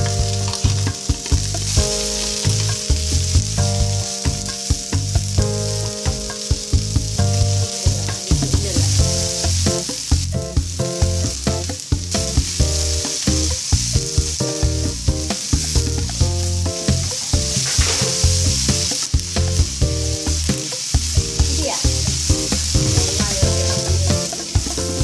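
Sliced onions and curry leaves sizzling as they fry in oil in a non-stick frying pan, stirred with a wooden spatula that scrapes and knocks against the pan again and again.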